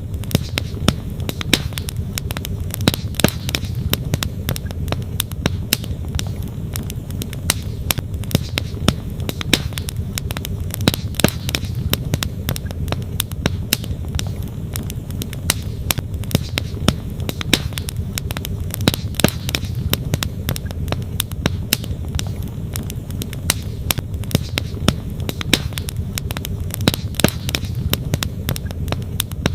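Wood campfire crackling, with frequent sharp irregular pops, over the steady low rush of a flowing stream.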